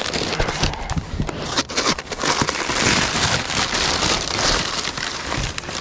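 Crumpled newspaper packing rustling and crackling continuously as hands dig through it and pull wrapped items out of a cardboard box.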